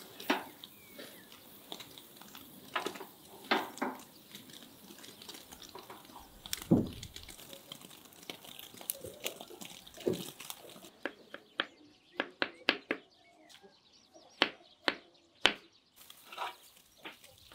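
Irregular clicks and knocks of things being handled, with one louder dull thump about seven seconds in.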